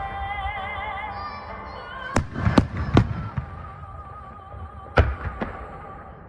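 Fireworks bursting overhead, three bangs in quick succession about two seconds in and two more about five seconds in, over music with a held, wavering melody.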